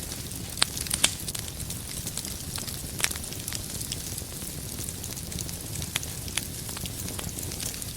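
Wood fire crackling in a fireplace: a steady low rumble and hiss from the flames, broken by sharp pops from the burning firewood. The loudest pops come twice in the first second and once about three seconds in.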